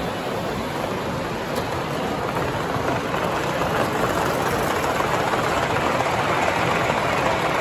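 Gauge one live-steam model locomotive and its train of freight cars running past on the track: a steady hiss that grows louder about three seconds in as the engine comes close.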